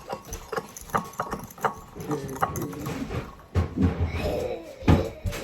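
Kitchen clatter: irregular knocks and clicks of utensils against cookware.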